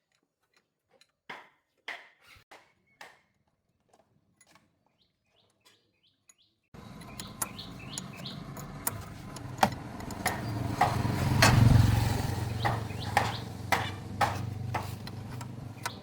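Scattered sharp metallic clicks and taps from repair work. About seven seconds in, a low motor hum comes in suddenly, swells to its loudest a few seconds later and eases off, with more clicks and taps over it.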